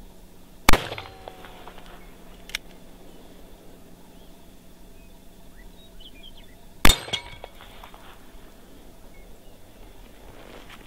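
Two .44 Magnum handgun shots about six seconds apart, fired at a steel target at close range. A short ringing note fades after the first shot, and there is a small click about two seconds in.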